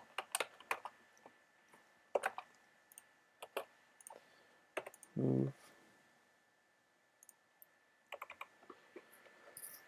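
Computer mouse clicks and keystrokes, sparse and light: a quick run of clicks at the start, then single clicks every second or so, and a few more near the end. A short low hum of a man's voice comes about five seconds in.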